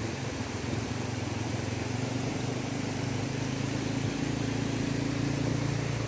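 An engine running steadily with a low, even hum; its pitch shifts slightly about four seconds in.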